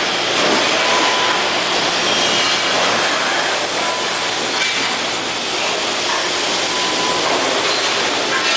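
Steady din of automated production-line machinery in a CRT television factory: a dense mechanical rumble and clatter, with a faint thin tone coming and going.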